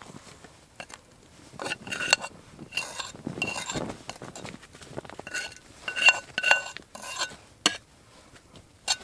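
Metal utensil clinking and scraping against metal camp cookware, a dozen or so short ringing clinks and scrapes at irregular intervals, as food is eaten.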